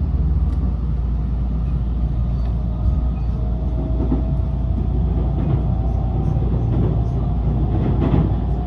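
Inside a moving electric train: a steady low rumble of wheels on the rails, with a faint traction-motor whine slowly rising in pitch as the train gathers speed, and a few light clicks from the track.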